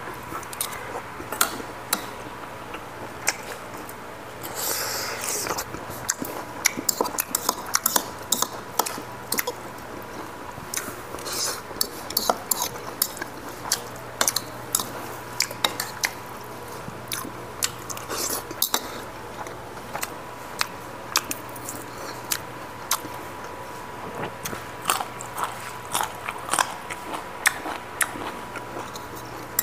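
Close-miked chewing and biting of a man eating rice and chicken by hand, with frequent short clicks of spoons against ceramic bowls. A faint steady tone runs underneath.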